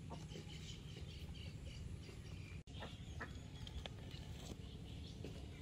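Faint outdoor background: scattered short bird chirps over a low, steady rumble, with a momentary dropout about two and a half seconds in.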